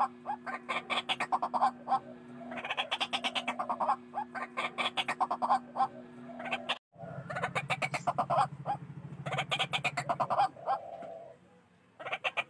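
White-breasted waterhen (ruak-ruak) calling loudly: rapid, repeated croaking notes in phrases of one to two seconds, the noisy chatter used as a lure call to attract the bird. The sound drops out completely for an instant about seven seconds in, and the calling stops about a second before the end.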